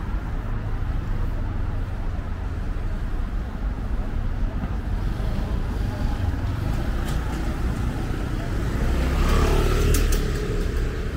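Street traffic: a steady low rumble of vehicles. One vehicle passes close, loudest about nine to ten seconds in.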